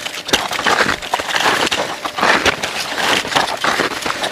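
Boots crunching through snow in an irregular run of footsteps, each step a short noisy crunch.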